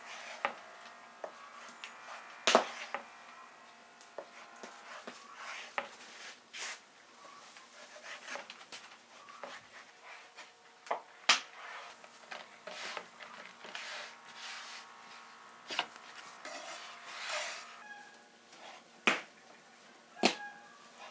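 Kitchen knife cutting through stacked sheets of rolled dough on a round wooden board: irregular sharp knocks of the blade on the wood, with softer rubbing sounds between.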